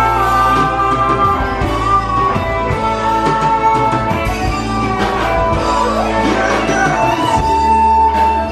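Live band playing a song: a singer's voice over guitar and a steady bass line.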